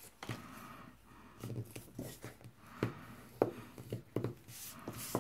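Cardstock being handled and folded by hand along its scored lines: soft paper rustling with several light taps and clicks against the table.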